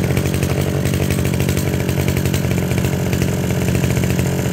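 Kawasaki TG33 brushcutter's 33 cc two-stroke engine running at a steady, even idle, loud and unchanging in pitch.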